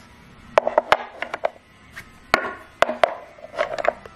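Toy blocks being set down one after another into a plywood box: a series of irregular hollow knocks and clatters, some in quick clusters.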